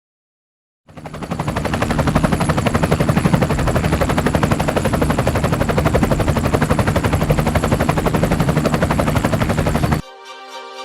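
A loud, very rapid, evenly pulsing mechanical rattle with a steady low hum beneath it, starting about a second in and cutting off abruptly near the end, where music takes over.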